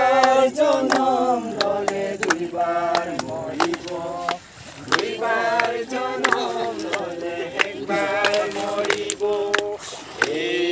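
Men and women singing a Christian worship song together, in long held, sliding notes with a short break about four seconds in, with scattered hand claps.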